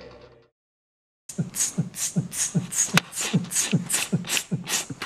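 A heavy-metal song fades out. After about a second of silence, a fast rhythmic beat starts: about four low, kick-like thuds a second that drop in pitch, each paired with a hissing, hi-hat-like 'ts'.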